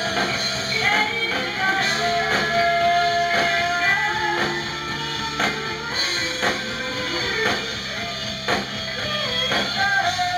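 Rock music with guitar, a steady drum beat about twice a second, and singing.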